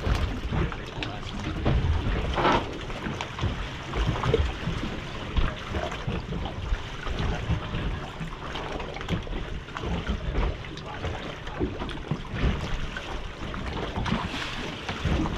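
Wind buffeting the microphone and water sloshing against a small boat's hull at sea, with scattered irregular knocks and thumps.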